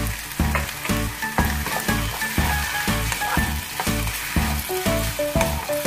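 Chicken wings sizzling as they fry in a non-stick pan, stirred with a wooden spatula. Background music with a steady beat of about two strokes a second plays over it.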